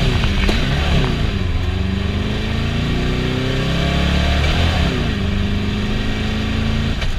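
Air-cooled VW Beetle flat-four engine revving under load while driving, heard from inside the cabin. Its pitch climbs, dips briefly about four and a half seconds in, climbs and holds again, then drops near the end.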